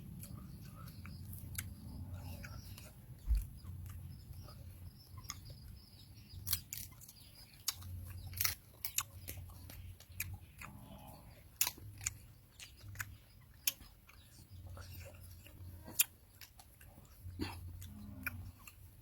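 People chewing and biting into food, with scattered sharp clicks and crunches.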